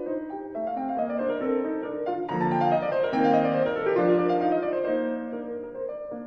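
Background piano music, a melody of short notes with a falling run in the middle.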